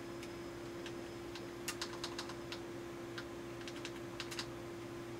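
Quick plastic clicks of a CRT monitor's front-panel menu buttons being pressed, about a dozen in two short runs, roughly two and four seconds in, over a steady low hum.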